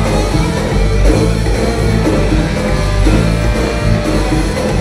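Live Latin funk-rock band playing, with electric guitar to the fore.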